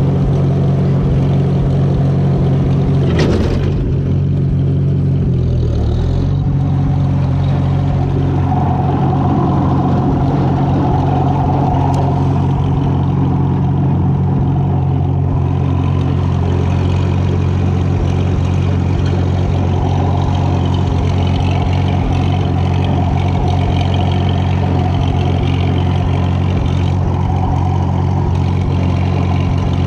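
The four-cylinder engine of a 1942 Farmall H tractor running steadily, with one sharp knock about three seconds in and a brief dip in engine pitch just after it.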